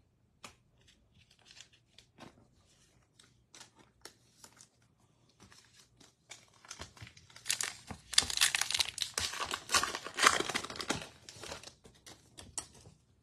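Wrapper of a Topps Heritage baseball card pack crinkling and tearing as it is opened by hand, loudest in a dense run of crackling in the second half. Scattered light clicks come before it.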